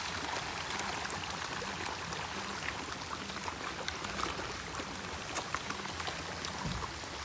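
A dense shoal of koi and goldfish splashing and churning at the pond surface as they feed: a steady watery patter full of many small, sharp splashes.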